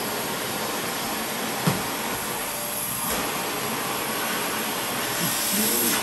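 Shark vacuum cleaner running steadily, a continuous hiss with a high steady whine on top; one short knock about one and a half seconds in.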